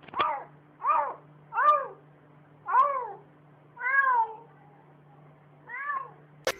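A domestic cat meowing six times in a row, each meow rising and then falling in pitch.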